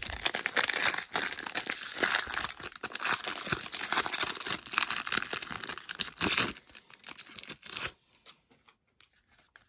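Wrapper of a 2021 Topps Series 1 baseball card pack being torn open and crinkled: a dense crackling that stops about eight seconds in.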